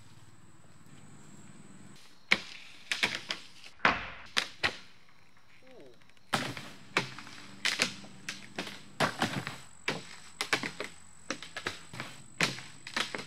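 Sharp clacks and knocks of ski gear being handled: skis, ski boots and poles set down and knocked against a wooden pallet and turf mats. They come irregularly, at times several a second, starting about two seconds in.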